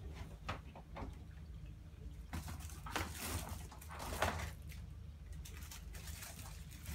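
Flexible aluminium foil ducting crinkling and rustling as it is handled, in bursts from about two and a half to four and a half seconds in, after a couple of light knocks. A steady low hum runs underneath.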